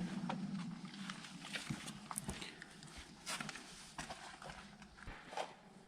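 Irregular footsteps and scuffs on sandstone, with faint animal sounds from inside the cave that turn out to be birds.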